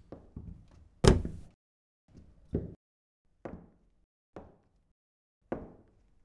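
A loud, sharp bang about a second in, followed by single hard knocks about once a second, each with a short ring.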